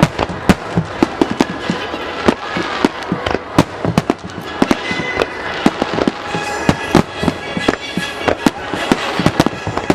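Aerial fireworks bursting in rapid succession at a large display: many sharp bangs and crackles, several a second, with no let-up.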